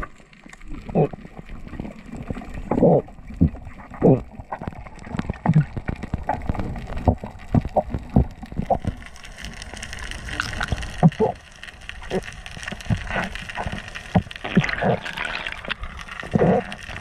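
Underwater sound picked up by the diver's camera: irregular muffled knocks, pops and gurgles of water, with a hissing rush of water and bubbles building in the second half.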